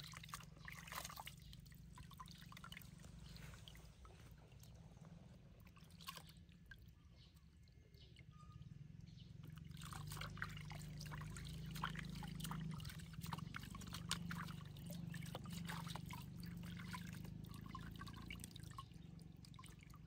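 Water trickling and dripping from a hand into a plastic basin of water, with scattered small drips and splashes. A faint low hum runs underneath and grows a little louder about halfway through.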